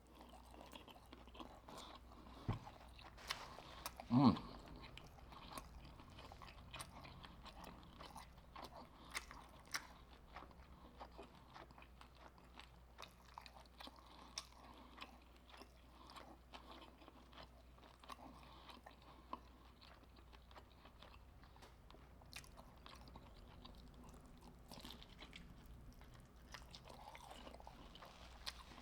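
Close-up eating sounds: crisp fried lobster tail and prawn batter crunching between the teeth, with chewing, and many sharp crunches scattered throughout. About four seconds in there is a louder short sound.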